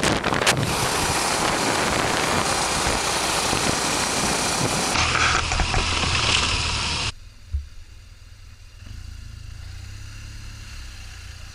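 Onboard sound of a motorcycle being ridden: loud wind rush over the camera microphone with the engine running underneath. About seven seconds in it cuts abruptly to a quieter stretch of steady low engine hum, with a single thump shortly after.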